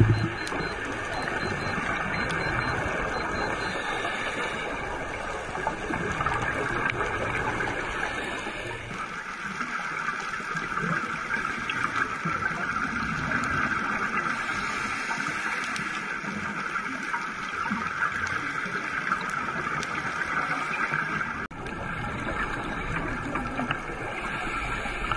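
Underwater ambient noise heard through a camera's housing: a steady watery rush and hiss. It dips out briefly about three-quarters of the way through.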